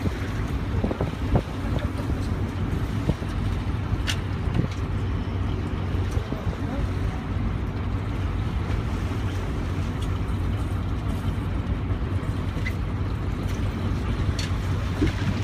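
A sportfishing boat's engine running with a steady low drone, with wind rushing over the microphone. A couple of short sharp knocks come about four seconds in and again near the end.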